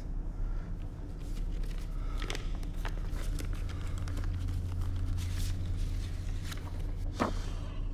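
Sheets of paper and a photo being handled and shuffled, with a few short crisp rustles, over a steady low hum.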